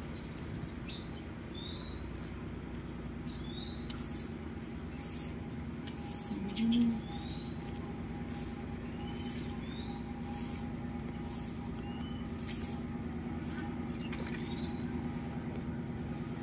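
Steady low engine hum, with small birds giving short high chirps again and again over it. A pulsing high hiss comes about once or twice a second, and one short louder low sound stands out about seven seconds in.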